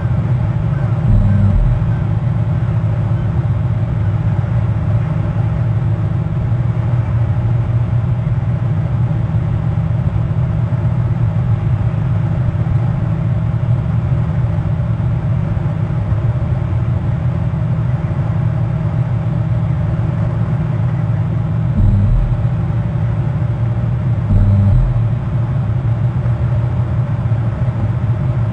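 A steady low hum made of several held tones, with brief low swells about a second in and again around 22 and 24 seconds.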